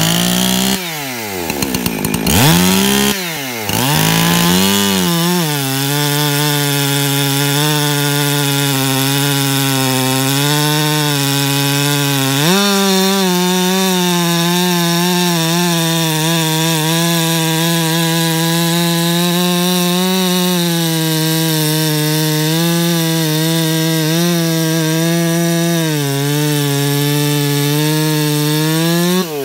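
Husqvarna 359 two-stroke chainsaw with a 20-inch bar and 3/8 full-complement chain, revved up and down a few times, then held at full throttle cutting through a large log. Under load its engine note stays steady, with a step up in pitch about halfway through.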